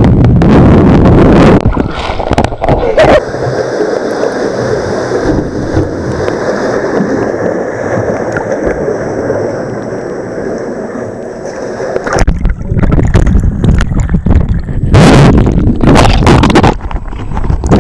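Sea water churning, sloshing and bubbling around an underwater camera in a surging rock channel, heard muffled through the water. It opens loud and turbulent, settles into a steadier rushing hiss, then turns loud and churning again about two-thirds of the way through.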